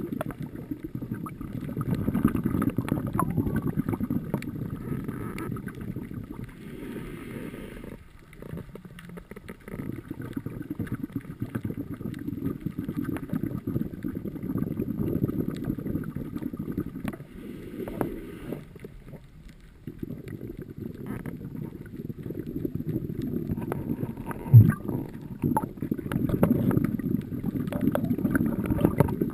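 Scuba regulator breathing heard underwater through a camera housing: long rumbling bursts of exhaled bubbles, broken twice by a quieter inhalation with a faint hiss. A single brief low thump sounds late on.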